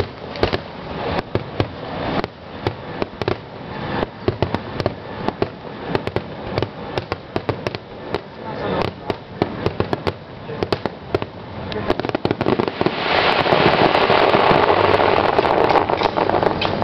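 Fireworks display: rapid sharp pops and crackles of bursting shells, several a second, thickening about thirteen seconds in into a continuous, louder crackling wash.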